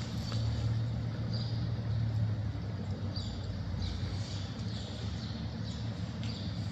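A steady low mechanical hum, with a few short, faint high chirps over it.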